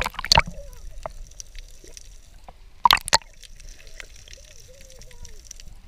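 Water gurgling and bubbling as heard by a camera held underwater, with two clusters of sharp knocks, one at the start and one about three seconds in.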